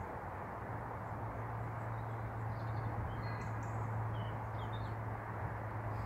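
Outdoor riverside ambience: a steady low hum over a constant noisy rush, with a few faint high bird chirps in the middle.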